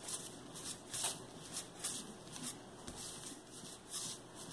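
A hand rolling a thin strand of modelling paste back and forth under the palm on a tabletop: a soft, rhythmic rubbing, about two strokes a second.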